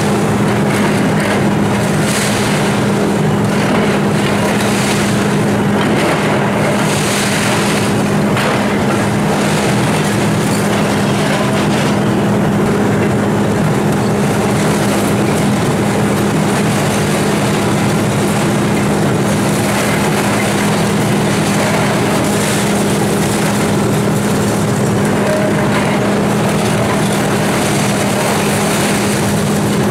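Volvo EC290C excavator's diesel engine running hard with a steady drone while it pulls down masonry, with repeated swells of crashing and clattering rubble and brickwork.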